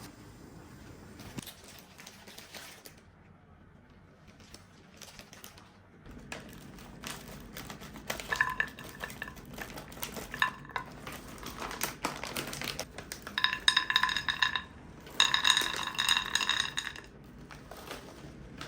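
A kitchen utensil stirring and scraping against a dish, with clinks. It is soft at first and gets busier after about six seconds, then turns into fast ringing strokes in two loud stretches in the second half.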